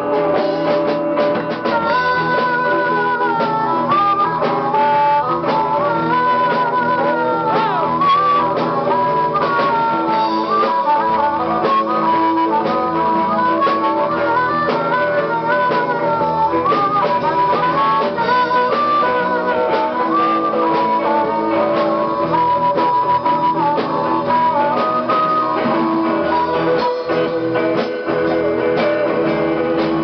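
Live blues band playing: guitars and drum kit under a wavering lead melody line with bent notes.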